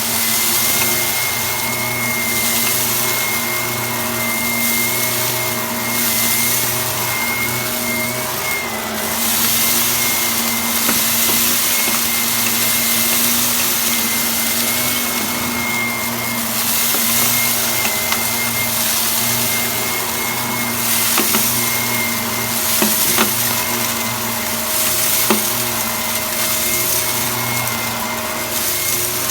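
Vacuum cleaner running with a steady high motor whine and a rushing airflow that swells and fades every few seconds as the nozzle is moved, with a few sharp clicks in the second half as it sucks up crunchy debris.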